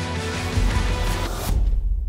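Background music; about one and a half seconds in, everything but a deep bass drops away.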